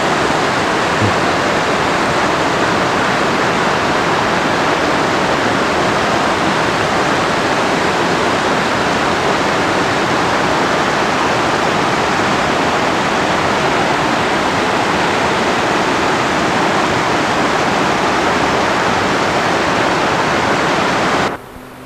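Loud, steady rush of a white-water mountain river tumbling over boulders. It stops abruptly near the end.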